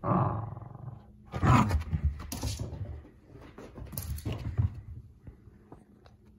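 Pomsky puppy growling in several short rough bursts as it tugs and chews a washcloth, with scuffling and sharp clicks between growls. The loudest growls come right at the start and about a second and a half in.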